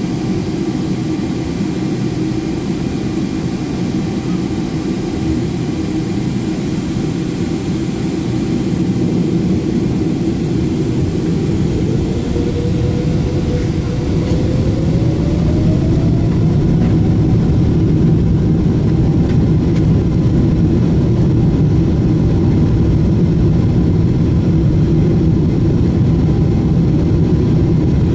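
Boeing 777-300ER's GE90 jet engines heard from inside the cabin. They spool up, with a whine that rises in pitch about halfway through; the engine noise then grows louder and holds steady at takeoff power as the takeoff roll gets under way.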